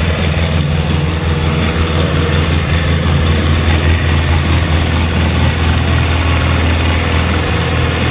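Vehicle engine running steadily, a deep, even drone that holds the same pitch throughout.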